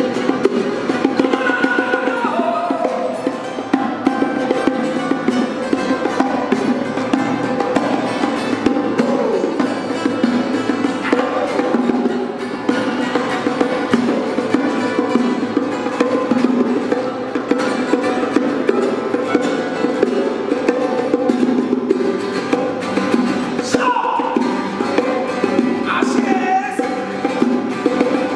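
Two acoustic guitars strummed in a fast, steady rhythm, with bongos played by hand underneath: a live unplugged trio performance.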